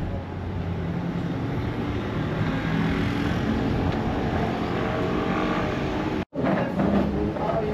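Motor vehicle engine running steadily under a constant wash of road or running noise. The sound cuts out completely for a split second near the end.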